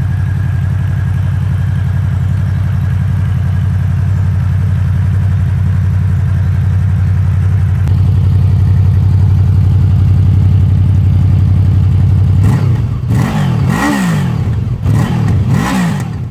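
Honda VFR800X Crossrunner's V4 engine idling steadily, then blipped up and down several times near the end.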